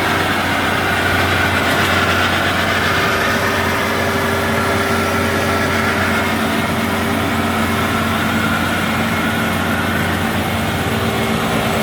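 Vehicle engine running steadily, with a constant low hum that does not change in pitch.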